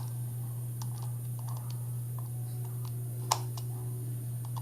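Light clicks and taps of a GoPro Hero5 Black's small plastic body being handled, with one sharper click a little over three seconds in, over a steady low hum.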